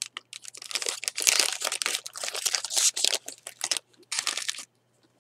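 A Topps baseball card pack's foil wrapper being torn open and crinkled in the hands, in a rapid run of crinkling that stops suddenly a little over half a second before the end.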